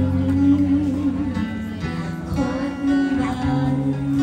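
Live band music: guitar playing with a sung melody over bass notes.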